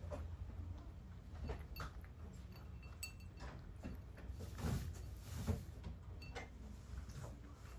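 A cat eating from a ceramic bowl: faint, irregular small clicks and smacks of chewing and licking, with two louder knocks a little past halfway.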